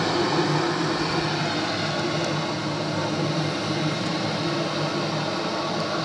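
A steady rushing rumble with no clear notes, the animatic's soundtrack played back through a television speaker.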